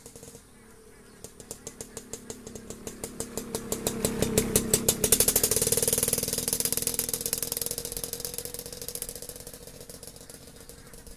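A motorcycle passing close by on the road: a rhythmic rattling engine sound that grows louder over about five seconds, peaks, then fades as it moves away.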